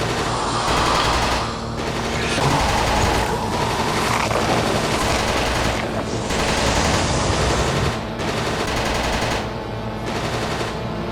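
Automatic gunfire in long sustained bursts, with brief pauses between them.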